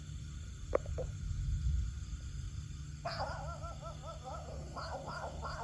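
Low rumble of distant thunder, swelling about a second and a half in. From about halfway, an animal calls in a quick series of short rising-and-falling notes.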